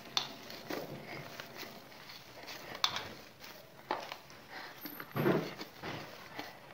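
Hands kneading damp bhajani flour dough in a steel plate: soft, irregular squishing and rubbing with a few sharp clicks, and a louder stretch of kneading a little past five seconds in.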